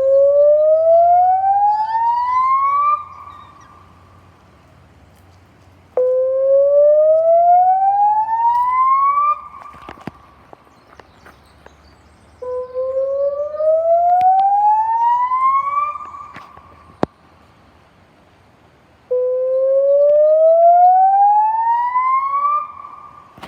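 Puntledge River warning siren, a speaker-array siren sounding in a test: a loud rising whoop that climbs over about three seconds, holds briefly at the top and cuts off, repeated four times with short pauses between.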